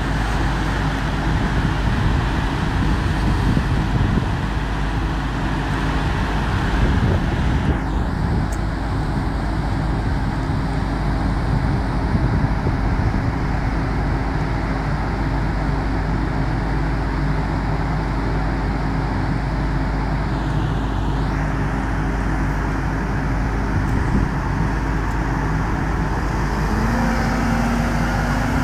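Volvo EC300E tracked excavator's diesel engine and hydraulics working as its demolition grab tears into timber and brick rubble, with crunching debris mixed in. The noise is steady and loud, rougher in the first few seconds, and a hydraulic whine rises near the end.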